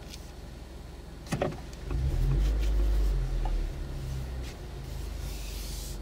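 Car engine pulling as the car reverses slowly: a low hum that swells about two seconds in and eases off a couple of seconds later, heard from inside the cabin. A single sharp click comes just before it.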